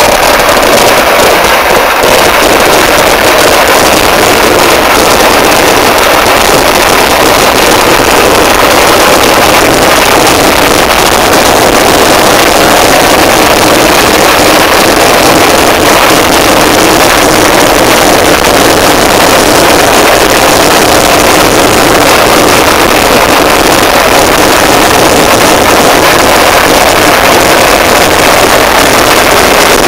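Dense, unbroken barrage of black-powder firecrackers going off in a Kerala temple fireworks display (vedikettu). The overlapping blasts merge into one steady, very loud din with a constant crackle.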